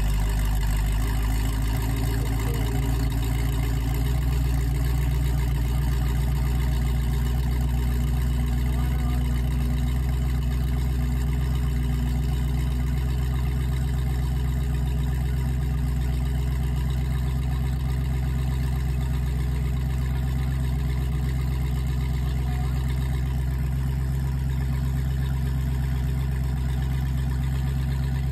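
The speedboat's MerCruiser sterndrive engine idling steadily on its trailer, out of the water, kept cool by a garden hose feeding the outdrive.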